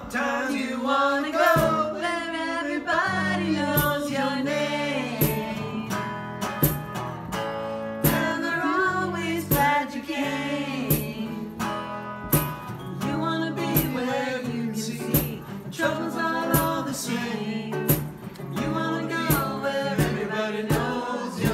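A man singing a song live while strumming a guitar, his voice over a steady strummed rhythm.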